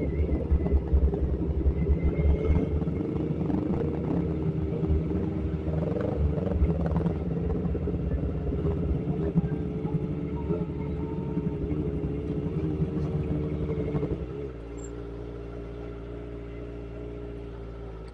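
Kawasaki Ninja sport bike's engine running at low road speed, then dropping to a quieter, steady idle about fourteen seconds in as the bike comes to a stop.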